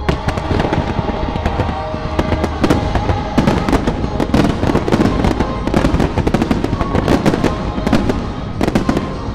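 A dense volley of fireworks: many sharp bangs and crackling shell bursts in quick succession. The fireworks show's music soundtrack plays steadily underneath.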